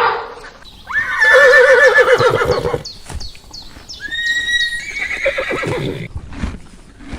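A horse whinnying: a long, quavering neigh about a second in, then a shorter high call about four seconds in, with some knocks between them.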